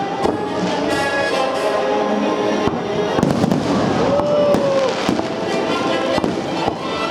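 Fireworks bursting in quick succession, many sharp bangs and crackles, with music playing over them.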